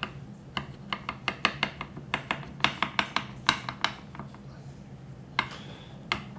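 Paring knife worked around the inside of a metal ring mold to unmold a tortilla, the blade ticking and scraping against the metal in a quick, irregular run of small clicks that thins out after about four seconds.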